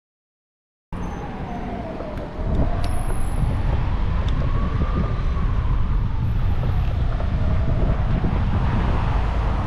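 Wind rumbling on the microphone with road noise of a moving ride, and a faint tone that slowly falls and rises. The sound cuts in abruptly about a second in and gets louder about a second and a half later.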